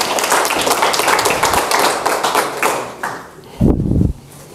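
Audience applauding for about three seconds, then dying away. Near the end comes a short, loud, low thump.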